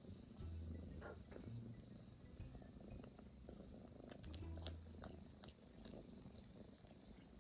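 A cat purring close by, a faint low rumble that swells and fades in stretches of about a second.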